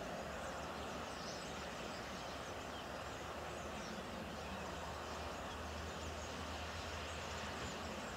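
Flock of common starlings giving faint, scattered chirping calls over a steady low rumble and hiss of background noise.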